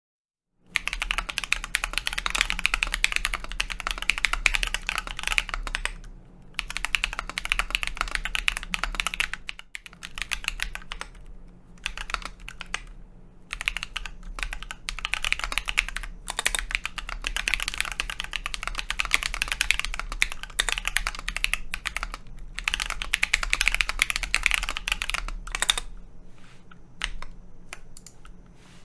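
Typing on a Keebio Sinc split mechanical keyboard fitted with Akko CS Ocean Blue switches and Akko Matcha Red Bean keycaps. Runs of fast keystrokes are broken by short pauses, then thin to scattered single key presses near the end.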